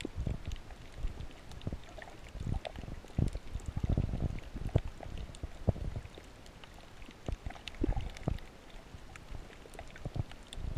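Underwater water noise heard through an action camera's waterproof housing: irregular muffled thumps and surges of moving water, with faint scattered clicks.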